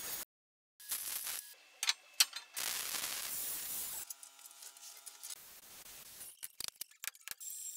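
Metal shop sounds in quick succession: short bursts of hissing abrasive noise from steel being sanded on a belt sander, and a sharp clank about two seconds in. A steady machine hum follows for about a second, then scattered clicks and taps.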